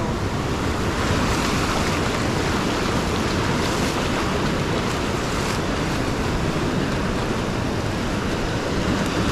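Ocean surf breaking and washing up the beach in a steady rush, with wind on the microphone.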